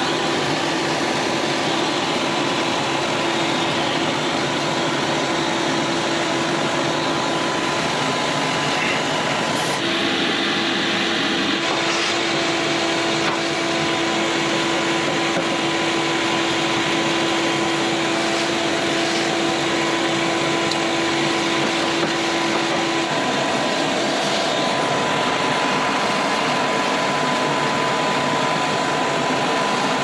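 Shop vac running steadily with a whine, its hose sucking dust out of a furnace's blower compartment and off the blower wheel. The whine shifts in pitch a few times.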